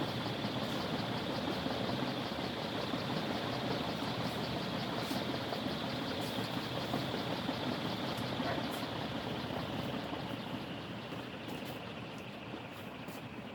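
A 56-inch Envirofan Silverline ceiling fan running at full power, a steady motor hum and rush of air, easing off slightly over the last few seconds.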